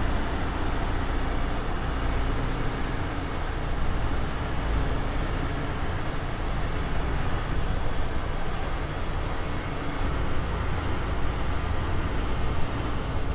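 Steady low rumble of a moving coach's engine and tyres heard from inside the front cabin, with road noise over it.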